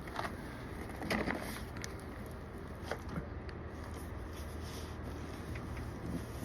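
Soft handling noises, a few light knocks and rustles as packaging and parts are moved, over a steady low hum. The loudest is a short cluster about a second in.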